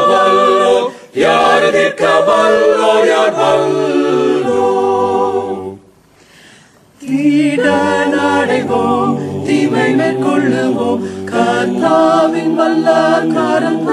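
Mixed group of eight men and women singing a Tamil Christian song a cappella in harmony, with no instruments. The singing breaks off for about a second around the middle, then the voices come back in together.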